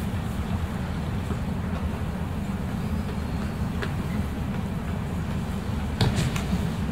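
Steady low rumble of a large hall's background noise, with a sharp slap and thump of a body hitting tatami mats in an aikido breakfall about six seconds in.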